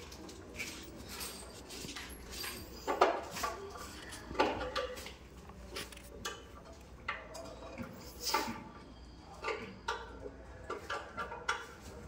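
Irregular metallic clinks, taps and scrapes of hand tools working plaster on a ceiling cornice, with the loudest knocks about 3, 4.5 and 8 seconds in.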